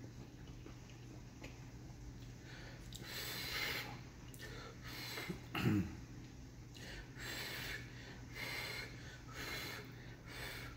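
A man breathing heavily through his nose while eating noodle soup: a string of loud, hissy breaths about once a second, with a short grunt that falls in pitch about halfway through.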